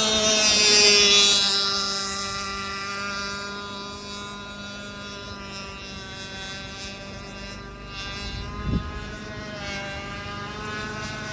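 Radio-controlled model racing boats running flat out, their engines making a steady high whine with many overtones. About nine seconds in, one boat passes close, its pitch dropping briefly.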